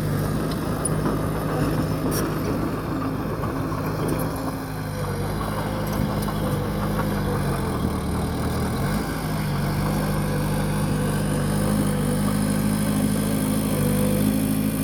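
Bulldozer's diesel engine running steadily under work; its note drops for a couple of seconds about halfway through, then comes back up.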